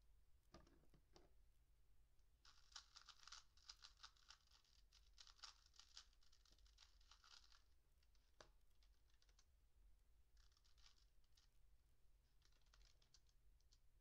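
Faint computer keyboard typing, quick clicks in runs with pauses between them, over near silence.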